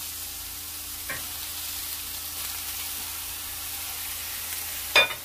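Oil sizzling steadily in a frying pan as thawed mixed seafood is added to stir-frying vegetables. A faint click comes about a second in and a sharp knock near the end.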